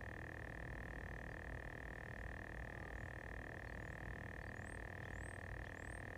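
A steady, unbroken high-pitched chorus of frogs, with a few faint short rising chirps near the end.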